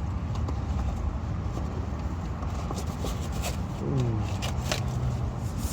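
Rustling and scraping of objects being handled, with scattered light clicks, over a steady low rumble.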